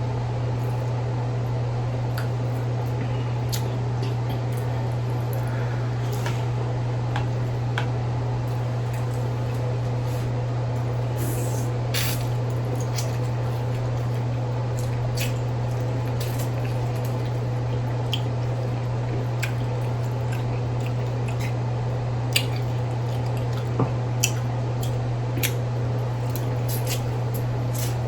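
Close-up wet eating sounds: a person biting and chewing sauce-covered corn on the cob, with scattered small squishes and clicks, over a steady low hum.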